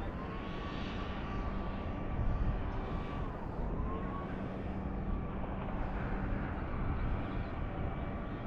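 Wind buffeting the microphone in a steady rumble, with a distant engine drone underneath whose pitch dips and rises twice.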